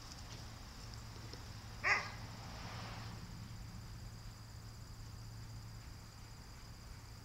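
A Border Collie barks once, a single short bark about two seconds in, over a steady low hum.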